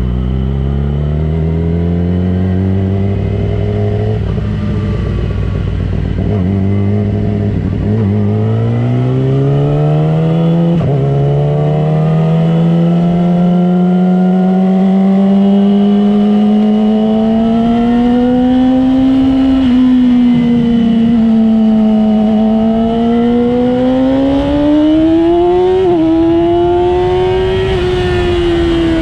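A vehicle engine running under way: low and steady for the first several seconds, then its pitch climbing steadily for about ten seconds, then rising and falling with the throttle, with a quick sharp blip of revs near the end.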